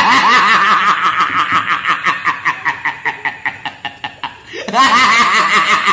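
Loud laughter: a long run of rhythmic laughing pulses, about five a second, that fades away, then breaks out again near the end.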